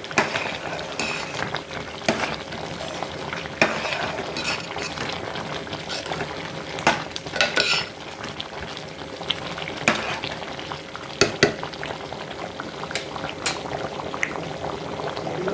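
Tomato rice at a rolling boil in a pot of water, bubbling steadily, while a spoon stirs it and clicks against the pot a dozen or so times.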